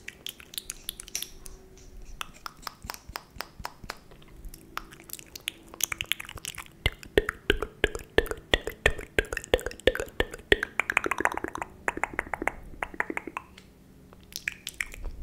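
Close-miked ASMR mouth sounds: rapid wet clicks and pops from the lips and tongue, busiest about halfway through and thinning out near the end.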